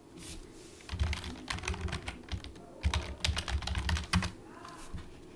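Typing on a computer keyboard: a quick, irregular run of keystrokes starting about a second in and stopping just after four seconds.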